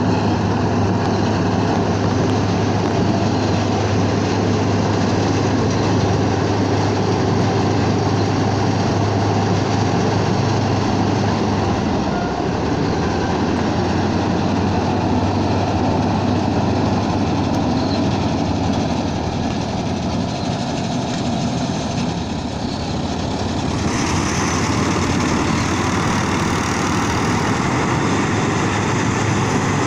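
Rice combine harvester's engine running steadily. A deep hum fades about halfway through, and the sound turns brighter and hissier about three-quarters of the way in.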